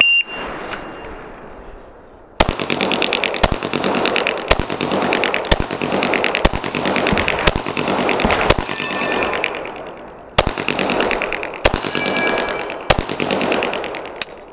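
Shot timer beeps briefly at the start. About two seconds later pistol shots begin, about eleven of them at roughly one a second, each with a long echoing tail.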